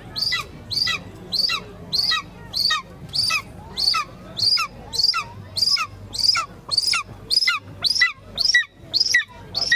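Captive-bred golden eagle calling over and over in short, high-pitched notes that each fall in pitch, about three a second; the falconer says the bird is imprinting on him.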